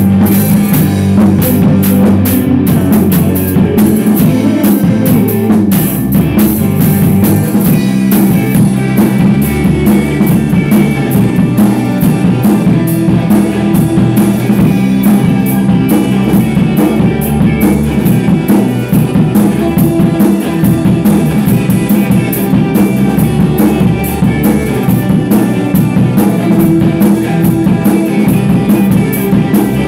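Rock band playing loudly in rehearsal: a drum kit with busy cymbals and an electric guitar over steady low bass notes.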